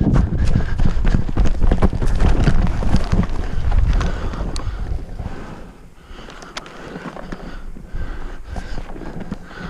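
Wind rumbling on the microphone and footfalls as a player runs forward, with many sharp clicks. About five seconds in it settles to a quieter hiss with scattered clicks.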